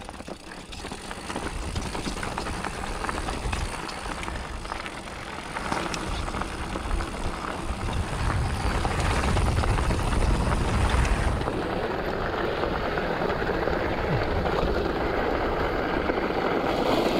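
2021 Polygon Siskiu N7 mountain bike rolling down a dirt trail, heard through a GoPro Hero 7 Black's microphone: wind rushing over the mic, with tyre rumble and clatter of the bike over rough ground. It gets louder toward the middle of the stretch.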